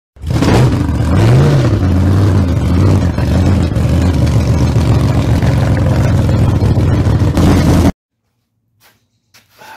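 Loud engine revving: one quick rise and fall in pitch about a second in, then running hard and steady before cutting off suddenly near the end.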